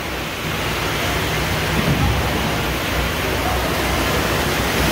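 Water rushing in an indoor waterslide flume as a rider slides down it: a steady loud rush with a brief low surge about two seconds in.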